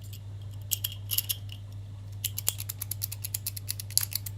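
A dimple rake being rocked side to side in the keyway of a Steelman 9-pin dimple padlock, tickling the pins. A few light metallic clicks come about a second in, then a fast run of clicks from about two seconds in.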